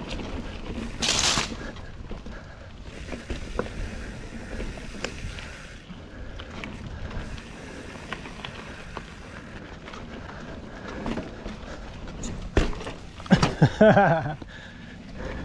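Titanium mountain bike rolling over rock and dirt trail: tyre noise with clicks and rattles from the bike and wind on the microphone. There is a brief loud hiss about a second in and a sharp knock near the end, followed by a short wordless grunt from the rider.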